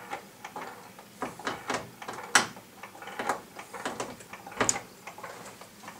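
Irregular clicks, pops and crackling from the faulty sound output of a Vizio VA370M 37-inch TV, with only faint broken fragments of the programme's audio coming through.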